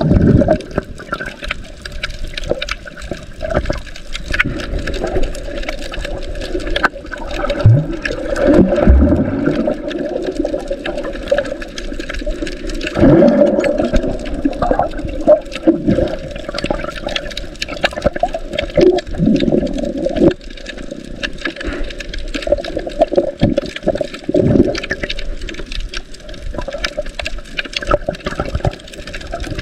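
Muffled underwater water noise heard by a submerged microphone: continuous swirling and sloshing with a few louder surges and faint scattered clicks.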